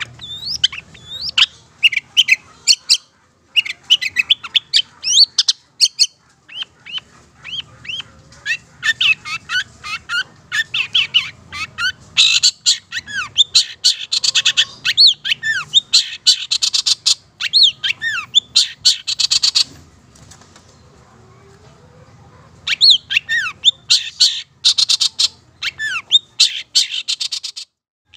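Long-tailed shrike (cendet) singing fast: a stream of short, sharp chirps and whistles mixed with quick buzzy trills, densest in the middle. It pauses for about two seconds two-thirds of the way through, then resumes.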